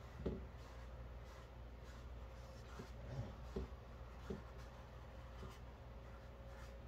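Faint strokes of paintbrushes on canvas, with a few soft knocks, over a low steady room hum.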